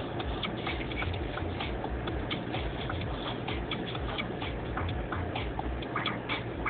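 Low rumble of a car heard from inside the cabin, with many irregular clicks and crackles over it.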